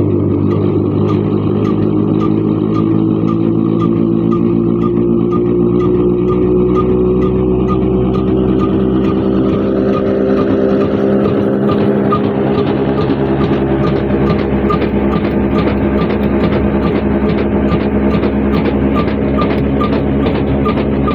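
Old stationary diesel engine with a big flywheel running steadily with a regular knocking beat, belt-driving a grinding mill; its pitch climbs a little over the first several seconds as it picks up speed.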